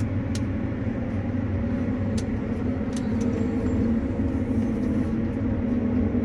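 Combine harvester's diesel engine working steadily under load, heard from inside the cab, as the machine climbs a steep bank in low four-wheel drive. A few faint clicks sound over the engine hum.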